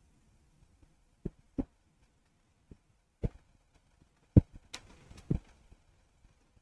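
Irregular short clicks and knocks, about seven of them, over near silence.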